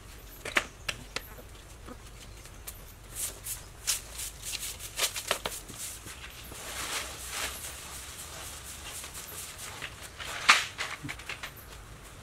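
Irregular scrapes, taps and knocks of hand work on a concrete pool floor, with a louder sharp knock about ten and a half seconds in.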